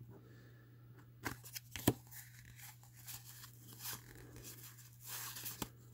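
Cardboard baseball cards (1987 Fleer) being thumbed through by hand, slid and flicked off a stack one at a time: soft scattered rustles and small clicks, the sharpest a little under two seconds in.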